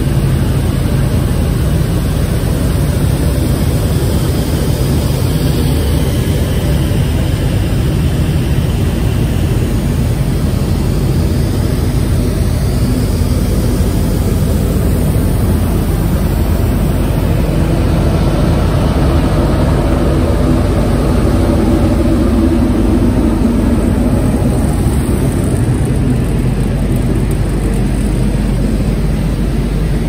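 FOREL 2200A6 vertical glass washing machine running: a loud, steady mechanical drone and rushing noise that holds level throughout.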